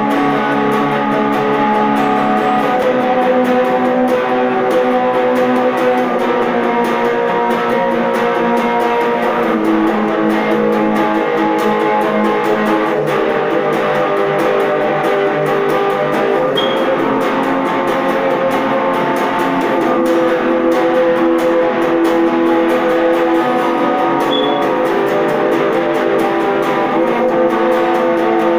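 Electric guitar being played, with held notes and chords ringing into one another.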